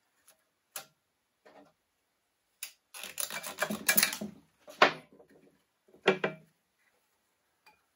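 Metal clinks and knocks from engine parts being handled in an opened Lycoming O-360 crankcase with the crankshaft in place. A few single sharp knocks, with a busier clatter about three to four and a half seconds in.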